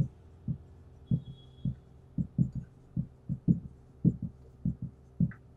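Marker writing on a whiteboard: a run of short, low knocks from the pen strokes, about three a second and unevenly spaced, over a faint steady hum.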